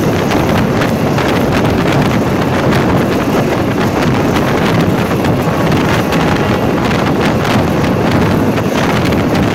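Wind buffeting the microphone over the steady rumble of a passenger train running at speed, with scattered clicks from the wheels on the rails.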